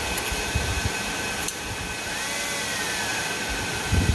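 Cooling fans of a Celestica DX010 100-gig network switch running loud just after power-on: a steady rush of air with a high whine, and a couple of faint clicks.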